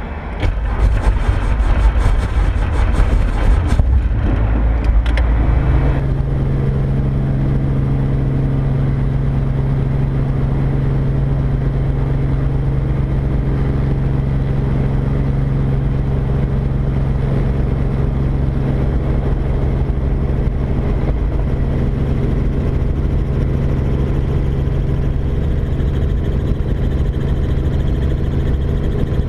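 Robinson R44 helicopter's six-cylinder Lycoming piston engine and rotor running, heard from inside the doorless cabin as a steady, even drone with a low hum. The first several seconds are rougher, with noisy buffeting and clatter, before the sound settles.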